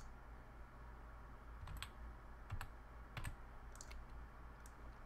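A few separate, faint keystrokes on a computer keyboard, typing a short word, over a low steady hum.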